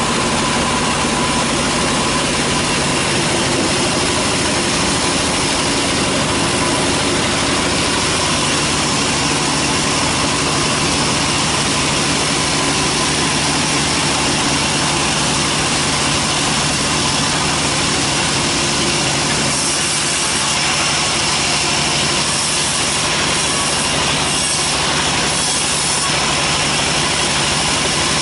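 Sawmill band saw running steadily under power while a teak log is set on its carriage. From about two-thirds of the way through, the high end turns rougher and uneven, as the blade nears the log and begins to bite.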